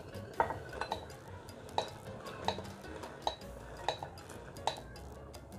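A wooden spatula knocking against a glass bowl: about eight sharp, ringing clinks at uneven intervals as dry tapioca pearls are scraped out of the bowl into a pot of boiling water.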